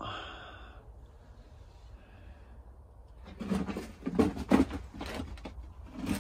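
A few knocks and scraping thuds, clustered about three to five seconds in, from movement among the fallen bricks and debris of a collapsed clay chimney.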